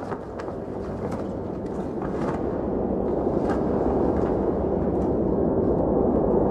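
A low, dense soundtrack rumble that swells steadily louder, a cinematic build-up drone, with a few faint clicks over its first few seconds.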